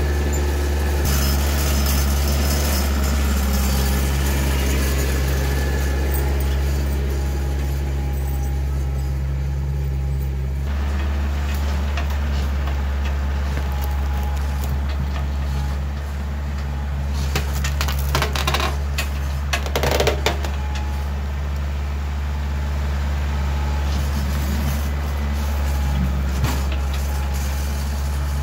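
Kioti compact tractor's diesel engine running steadily while the front-end loader works, with a few louder knocks and scrapes about two-thirds of the way through.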